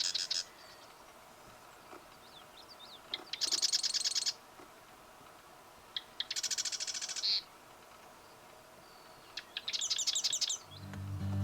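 A small songbird repeating a rapid trilled song, each about a second long, three times at intervals of about three seconds, with a few faint short call notes between. Acoustic guitar music fades back in near the end.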